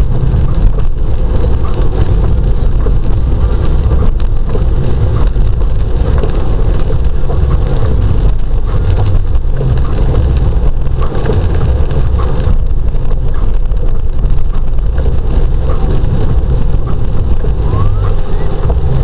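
Steady low rumble of a car's engine and tyres on a wet road, heard from inside the cabin.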